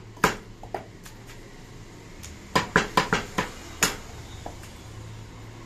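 Heavy curved butcher's knives chopping goat meat on a wooden log chopping block: two sharp chops near the start, then a quick run of about six chops a little past the middle, with pauses between.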